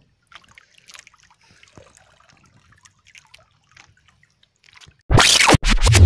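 Faint scattered water drips and trickles. About five seconds in, a sudden loud rush of noise cuts in, breaks off for a moment and comes back.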